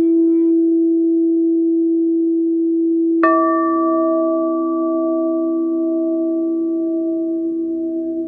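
Crystal singing bowls: one bowl holds a steady low hum throughout. About three seconds in, another bowl is struck, adding a brighter ringing tone and a deeper one that slowly fade while the first keeps sounding.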